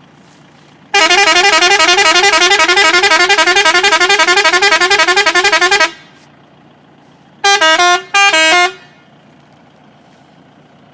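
Multi-tone electric melody horn ('Arab horn') driven by its electronic controller, playing a fast run of alternating notes for about five seconds, then sounding two short blasts.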